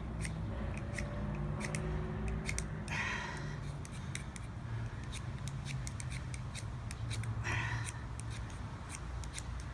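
Ferro rod being struck with a metal striker: a run of short scrapes, with two longer rasping strokes about three seconds in and near eight seconds, over a steady low hum. The strikes fail to light the cotton-ball fire starter because Vaseline has got on the striker.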